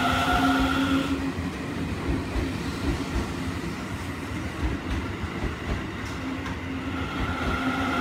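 Seibu 30000 series electric train moving past the platform, its wheels rumbling and knocking over the rails. A steady electric motor whine fades out about a second in and comes back near the end.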